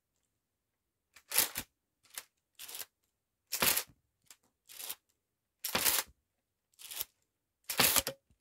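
Homemade LEGO semi-automatic rifle's plastic mechanism clacking as it is fired and cycles: a sharp plastic clatter about every two seconds, with softer clicks in between.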